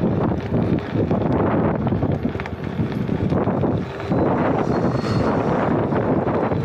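Wind buffeting the microphone: a dense, rumbling noise that swells and dips.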